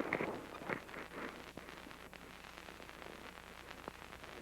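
Steady low hiss and hum of an old recording's soundtrack, with a few faint clicks. Faint voice-like sounds in the first second or so.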